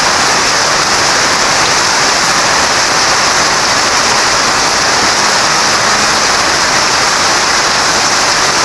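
Heavy rain falling on dense tropical trees and foliage, a steady hiss that does not let up.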